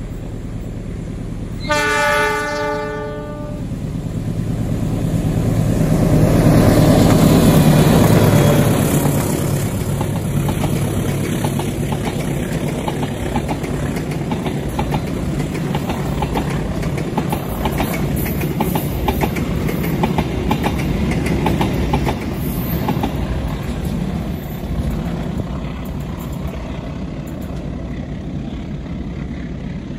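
A KAI passenger train's diesel locomotive sounds one short horn blast about two seconds in, then its engine rumble swells as it passes, loudest around seven to eight seconds in. The wheels of the carriages then clatter over the rail joints in a quick run of clicks that thins out near the end.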